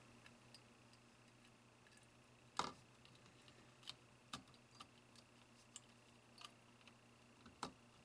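Wire cutters snipping the excess component leads off a soldered circuit board: a scattered series of sharp clicks, about seven in all, the loudest about two and a half seconds in.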